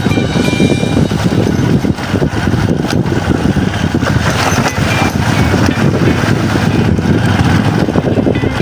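Steady vehicle noise from riding along a road, a dense low rumble whose level jitters constantly, as wind on the microphone does.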